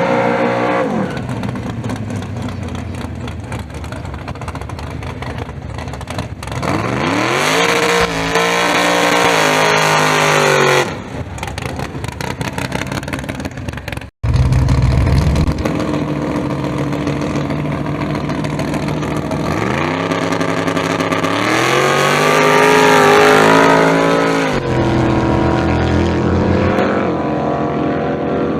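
Drag-racing car engines running and being revved, the pitch climbing and falling twice, with a brief break about halfway through.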